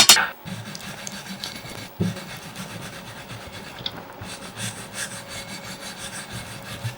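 Rasping, rubbing sound of a tool scraping on iron, with one sharp knock about two seconds in.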